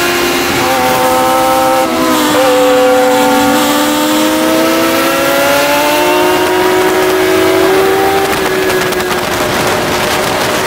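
Sport motorcycle engine running hard on a race track, with wind noise: the engine note dips about two seconds in, rises steadily for several seconds as the bike accelerates, then drops again near eight seconds in.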